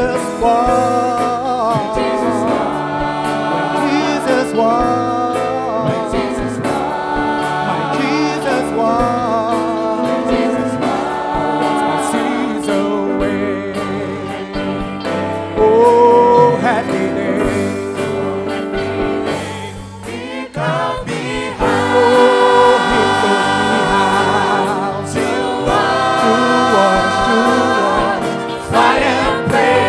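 Choir of men's and women's voices singing together with instrumental accompaniment. Near the end a man's solo voice leads over the choir.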